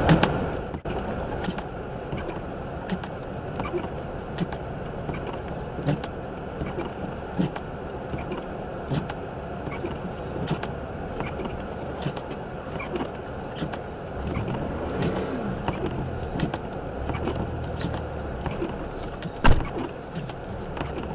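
Car cabin noise while driving slowly through a blizzard: steady road and engine noise with scattered small ticks throughout, and one sharp knock near the end.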